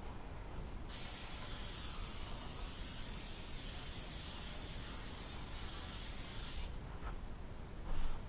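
Aerosol can of spray adhesive spraying in one continuous hiss for about six seconds, starting and stopping abruptly, to tack upholstery batting in place. A brief bump near the end.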